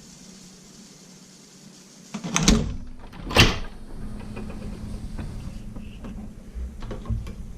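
Heavy-duty leather sewing machine stitching leather straps. Two loud clunks of the mechanism come a little under a second apart, followed by a steady low hum and light clicks.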